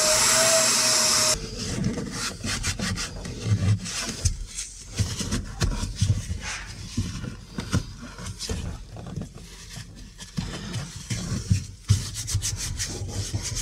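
A shop vacuum running, which stops abruptly about a second and a half in. Then a cleaning cloth wiping down the truck's plastic centre console and handbrake lever: a run of short, irregular rubbing strokes.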